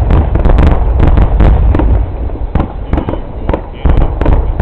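Fireworks finale: a rapid barrage of aerial shell bursts, sharp cracks and booms over a continuous low rumble, thinning out briefly past the middle before another volley near the end.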